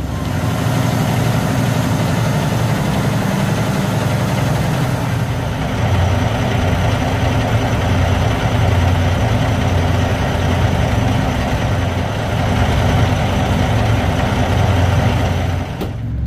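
Large diesel truck engine idling: a steady low rumble with a hiss over it.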